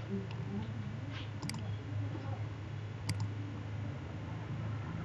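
Computer mouse buttons clicking twice, sharply, about a second and a half apart, over a steady low electrical hum.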